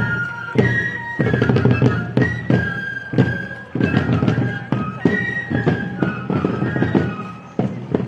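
Outdoor parade music: a high flute melody over a steady beat of hits.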